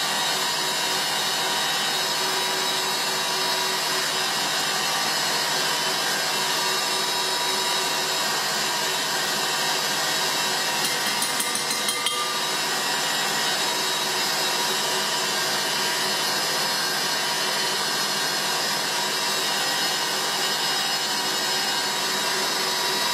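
Electric stand mixer running steadily at high speed, its wire whisk beating egg whites into meringue. A few light clicks come about halfway through.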